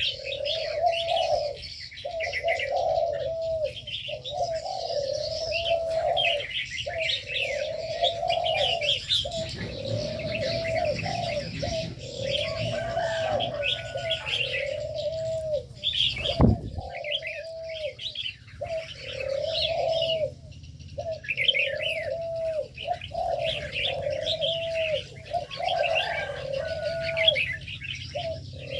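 Doves cooing continuously in an aviary, one arching coo after another, with smaller birds chirping over them. A single sharp knock comes about halfway through.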